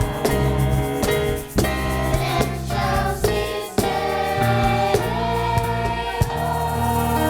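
A song with a choir singing over instrumental accompaniment and a steady beat.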